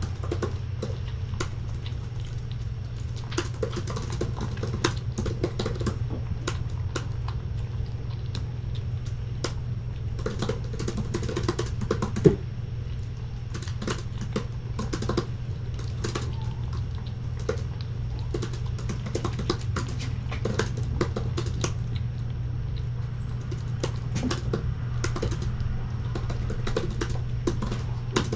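Typing on a MacBook laptop keyboard: irregular runs of quick key clicks, with one louder knock about twelve seconds in, over a steady low hum.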